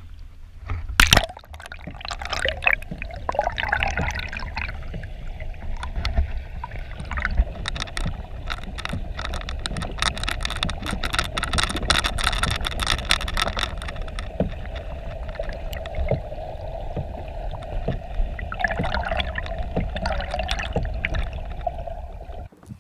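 A camera plunged under the surface of a lake: a splash about a second in as it goes under, then the muffled low rumble and gurgling of water around the submerged camera, with many small clicks and crackles, thickest in the middle. The sound cuts off suddenly near the end.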